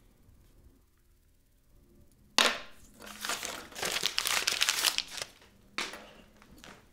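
Paper being crumpled by hand: a sudden crackling start about two and a half seconds in, crinkling for a few seconds, then one more short crumple near the end.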